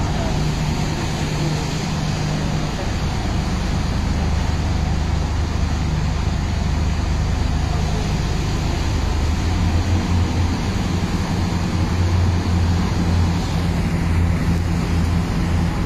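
Engines of a Thames Clipper river catamaran droning steadily under way, over a loud rush of water churned by the boat. The engine note rises slightly about halfway through.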